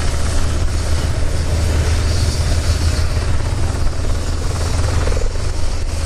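An F-15 fighter's twin jet engines running on the ground, a steady low rumble under an even rushing hiss.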